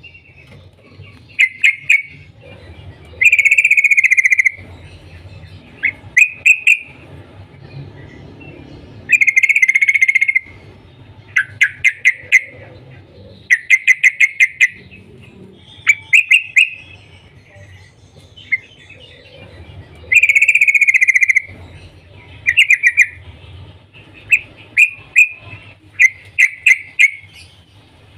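Yellow-vented bulbul (trucukan) calling in loud bursts every second or few seconds. Some phrases are bubbly warbles; others are rapid strings of sharp "cuk cuk" notes, coming thickest near the end.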